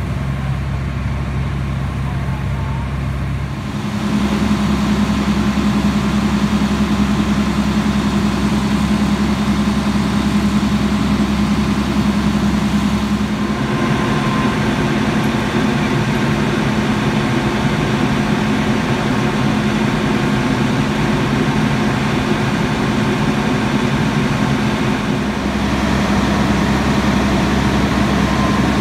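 Fire engine's diesel engine running steadily with a constant hum. About four seconds in it gets louder and a higher steady hum joins, and it holds there.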